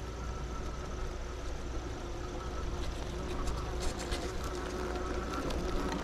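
RC rock crawler's electric motor and drivetrain whining steadily as it drives, with a scatter of sharp clicks from about halfway in, over a low rushing background.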